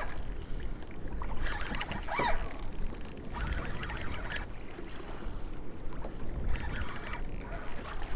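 Wind rumbling on the microphone and water moving around a kayak, with a few short bursts of higher splashing or rattling.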